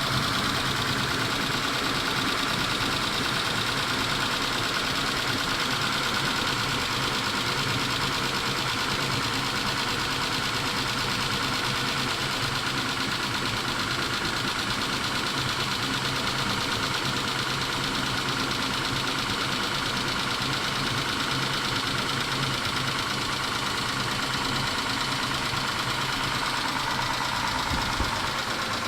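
Mitsubishi 6G72 V6 engine idling steadily with a light, even ticking, which the owner takes for noisy hydraulic lash adjusters (lifters), though he wonders whether the engine itself is worn.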